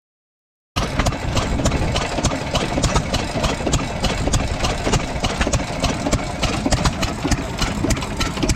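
Antique stationary gas engine running steadily, with a quick, even ticking from its valve gear and firing. It cuts in suddenly about three-quarters of a second in.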